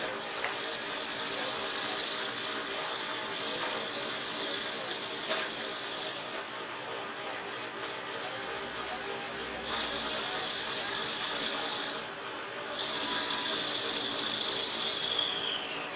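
A small high-speed electric power tool run in three bursts, its high whine over a rough grinding noise. Each time it is switched off, the whine falls in pitch as the motor winds down.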